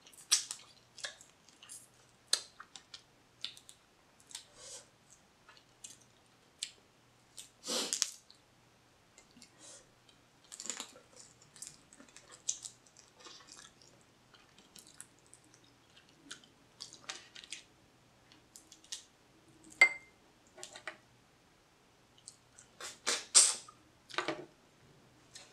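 Close eating sounds of blue crab: wet chewing and sucking of crab meat off the fingers, with scattered sharp clicks and smacks, loudest about eight seconds in and again near the end.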